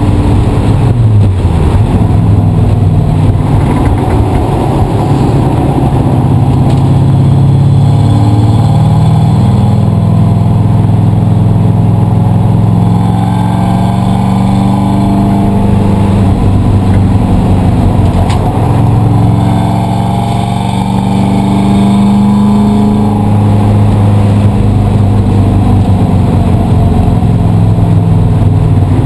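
A race car's engine running hard and loud, its pitch climbing and then dropping several times as the car accelerates and slows around the track.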